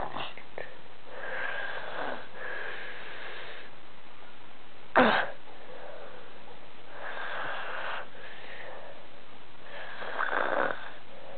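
A sleeping man snoring and gasping: raspy breaths every few seconds, each carrying a thin whistle, with two sharp gasps, one at the start and one about five seconds in, the loudest sounds.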